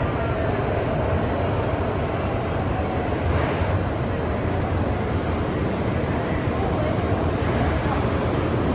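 Shinkansen bullet train running into the station platform: a steady rumbling rush, with a short hiss about three and a half seconds in and thin high brake squeal from about five seconds on.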